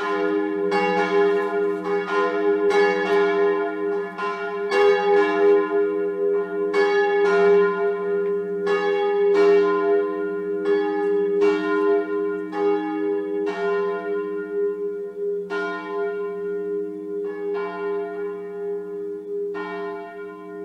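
Church bells ringing to call to the service: several bells of different pitch struck over and over, their low hum sustained underneath. Toward the end the strikes come further apart and fade as the bells ring down.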